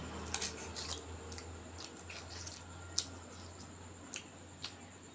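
Close-up eating sounds: wet mouth clicks and smacks from chewing food, a dozen or so short sharp ones at irregular intervals, over a low steady hum.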